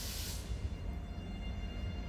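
Electric multiple-unit passenger train approaching the platform. A faint low rumble sounds under a steady electric whine made of several thin tones, with a brief hiss at the very start.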